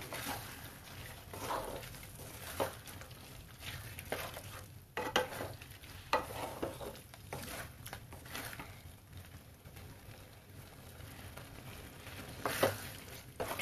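A spatula stirring boiled chickpeas into sizzling masala in a metal kadai over a high gas flame. The frying hiss runs steadily, broken by occasional scrapes and knocks of the spatula against the pan.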